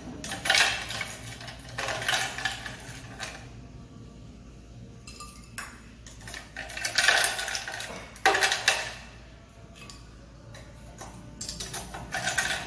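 Metal cutlery clinking and scraping against ceramic bowls and dishes, in several separate bursts of clatter.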